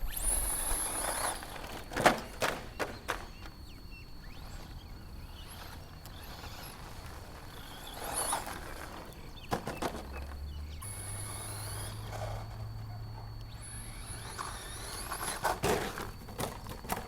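HPI Maxxis Blitz RC truck's brushless electric motor whining at high pitch in bursts as it drives, at the start and again for a few seconds past the middle. Sharp knocks and clatters come from the truck hitting things and tumbling, about two seconds in and again near the end.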